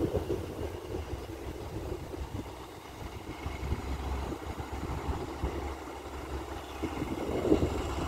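Low, steady rumble of a distant Alsthom diesel-electric locomotive running as it brings a passenger train round a curve toward the microphone, with wind buffeting the microphone at the start and again near the end.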